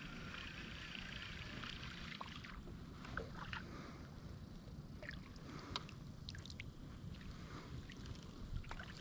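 Faint sounds of a kayak being paddled: a soft swish of water for the first couple of seconds, then scattered light drips and ticks from the paddle blade, over a low steady rumble.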